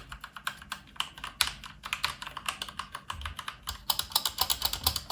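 Mechanical keypad with Outemu Red linear switches being typed on: quick, irregular key presses clicking several times a second, thickest about four seconds in.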